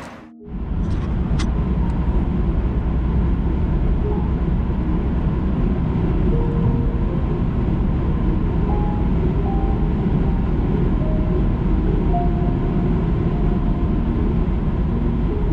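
Car driving at highway speed, heard from inside the cabin: a steady, low rumble of road and engine noise. A couple of light clicks come about a second in.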